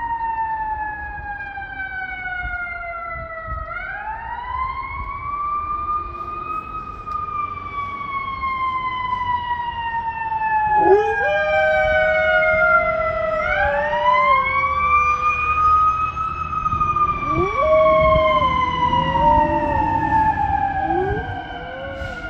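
Fire truck siren wailing, its pitch rising briskly and falling slowly in long sweeps. From about halfway in, a golden retriever howls along with it: two long howls and a short third one.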